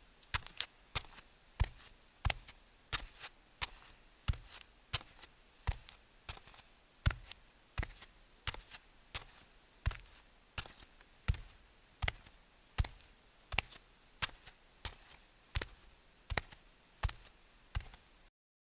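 A steady series of sharp taps or clicks, a strong one about every 0.7 s with fainter ones in between, cutting off abruptly near the end.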